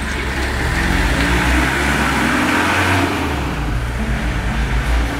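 Peugeot van's engine running as it pulls away and accelerates down the street.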